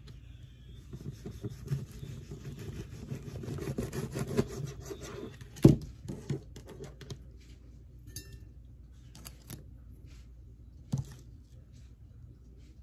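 A knife sawing through citrus fruit on a cutting board in repeated rasping strokes for the first few seconds, then a sharp knock a little before the middle, with scattered small clicks and a second knock near the end as the cut pieces are handled.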